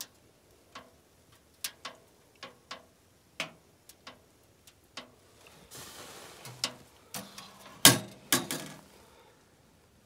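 Wood fire crackling in a small metal camp stove, with scattered sharp pops. About eight seconds in, the stove's metal door is shut with a loud ringing clank, followed by a couple of lighter knocks as it is latched.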